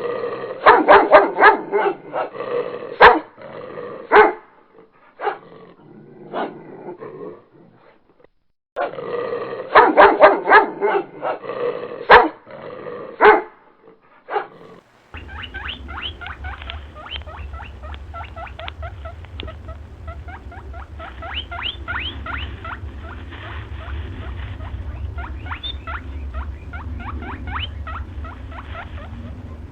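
A dog barking in rapid volleys, heard twice with a short gap between. About halfway through it gives way to a different animal clip: a fast run of small ticks over a steady low hum.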